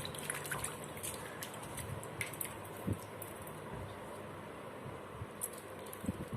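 Faint kitchen handling sounds as vegetables are washed and set out, with a few light knocks, the clearest about three seconds in and another near the end.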